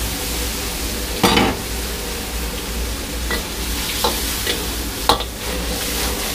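Fish pieces sizzling in a simmering sauce in a wok while a steel ladle stirs them, with sharp scrapes and knocks of the ladle against the wok, the loudest about a second in and smaller ones about four and five seconds in.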